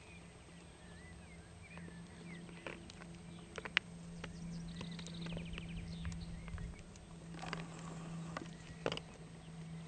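Two male Alpine ibex sparring, their horns clashing in sharp knocks. The loudest knock comes a little under four seconds in and another near the end.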